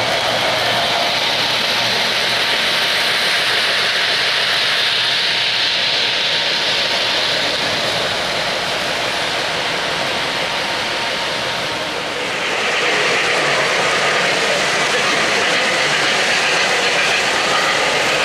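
O-gauge three-rail model train running on metal track: a steady noise of wheels rolling on the rails. It dips briefly and changes character about twelve seconds in.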